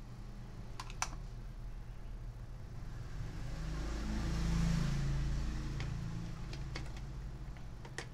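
Scattered sharp clicks of plastic connectors and parts being handled on a motherboard, over a steady low hum. In the middle, a passing engine rises and fades over about three seconds and is the loudest sound.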